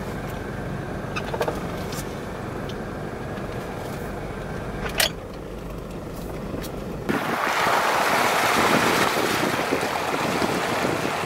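Inside a Toyota Land Cruiser 70 moving slowly: a steady low rumble of engine and tyres, with a few sharp clicks and knocks. About seven seconds in, it cuts abruptly to a louder, even rush of wind on the microphone.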